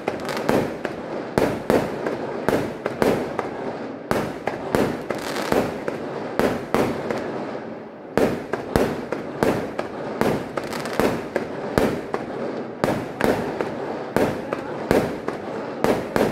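Fireworks going off in quick succession: aerial shells bursting with sharp bangs, about one to three a second, with crackling between them.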